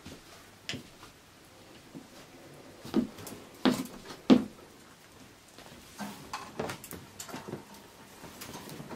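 Handling noises around a bed: a few sudden knocks and thumps, loudest about three to four and a half seconds in, then quieter rustling and light knocks as a person reaches onto the bed and moves the blanket.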